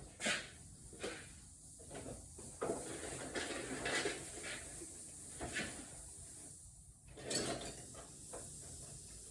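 Rummaging for a piece of starter rope: irregular knocks, clicks and scrapes of parts and tools being moved about, with a louder clatter a little after seven seconds in.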